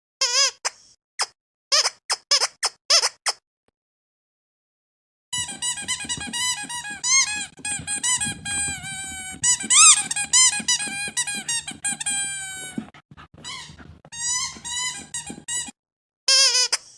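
Squeaky rubber dog toy squeezed over and over. A few quick squeaks come first, then a pause of about two seconds, then a long run of squeaks gliding up and down over a low steady hum, and a few more squeaks near the end.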